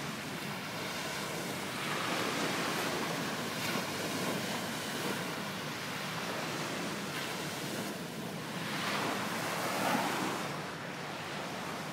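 Small waves breaking on a sandy shore and washing up the sand, the surf swelling and easing, louder twice.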